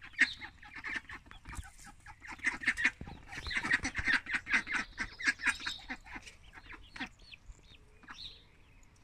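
Hens and runner ducks in a pen calling together: many quick, short overlapping calls, busiest in the middle and thinning out near the end.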